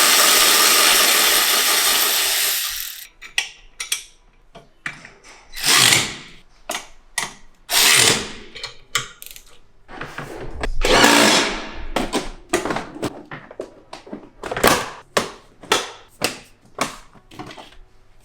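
A power drill runs steadily for about three seconds while driving a fastener during golf cart bumper assembly, then stops. Then come short bursts from the drill and many clicks and knocks of parts and tools being handled.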